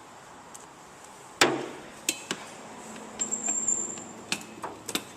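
A run of sharp metallic knocks and clinks from hand tools against metal parts, about eight in all, the loudest about a second and a half in, with a brief high ringing note near the middle.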